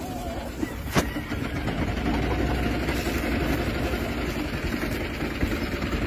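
Engine of a small utility vehicle running steadily as it drives slowly past the pens, with one sharp click about a second in.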